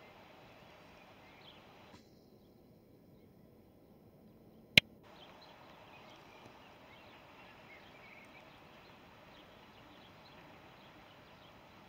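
Faint rural outdoor ambience with scattered small bird chirps. A single sharp click about five seconds in.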